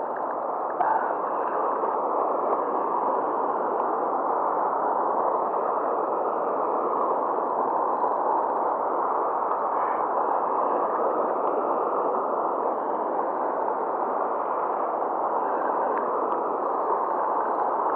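Steady rush of turbulent river water pouring over and below a weir.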